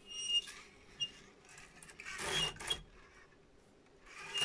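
Hands handling a plastic tape reel and tape on a reel-to-reel tape recorder: three short stretches of rubbing and rustling with faint squeaks, and a small click about a second in.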